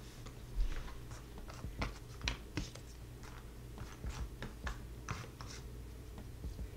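Loose cork jigsaw puzzle pieces being sifted and slid across a tabletop by hand: scattered, irregular soft clicks and scratches.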